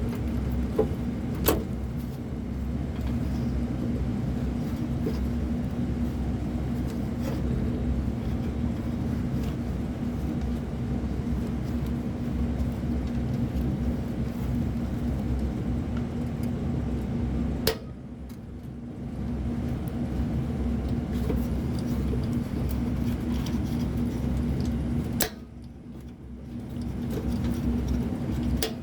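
Steady low hum of running HVAC equipment, with a few sharp clicks near the start. Twice, a sudden click is followed by the hum dropping away and building back up over a couple of seconds.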